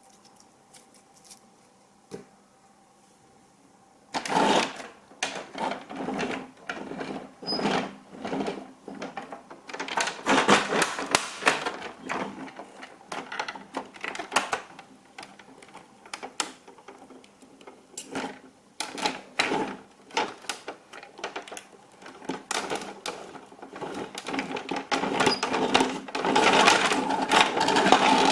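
Rapid, irregular clicking and rattling of small hard objects clattering together, starting suddenly about four seconds in after near quiet and growing louder near the end.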